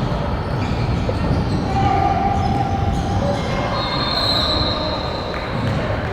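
Basketball shoes squeaking on a gym court in several short, high squeals at different pitches, over the steady noise of a game in a large hall.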